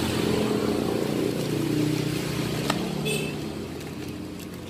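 A motor vehicle engine running, a low steady hum that shifts in pitch now and then. There is one sharp click a little past the middle.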